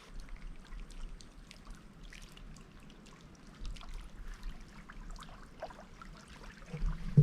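Faint river water trickling and lapping at the bank, a scatter of small ticks and splashes, with a louder low thump near the end.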